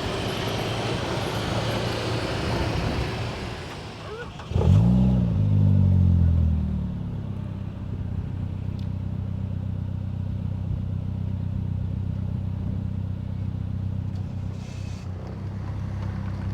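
Motor trike's engine starting about four and a half seconds in, with a brief rev that rises and falls, then settling into a steady idle. Before the start there is a broad rushing noise.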